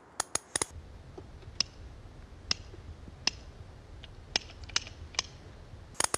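Proxxon Industrial ratchet wrench clicking as it is worked, a quick run of sharp pawl clicks in the first second. Then a low hum with about six single sharp clicks spread roughly a second apart.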